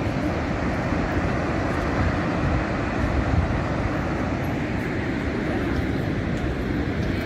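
Niagara Falls' waterfall: a steady, unbroken rush of falling water, an even low rumble with no pauses.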